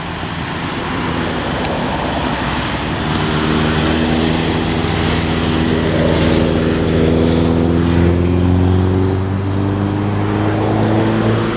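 A road vehicle's engine droning, its pitch rising slowly from about three seconds in, over a steady rushing noise.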